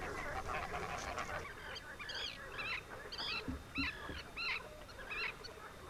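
Mute swan cygnets peeping: a series of short, high-pitched calls, about two a second, starting about two seconds in, over a faint background hiss.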